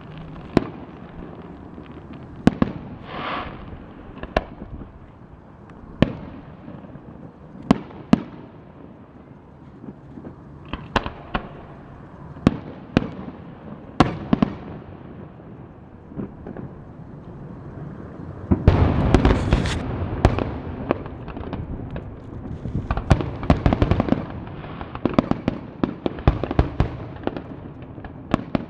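Aerial fireworks display: separate shell bursts go off as sharp bangs every second or two. About two-thirds of the way in this turns into a dense barrage of rapid bangs and crackling.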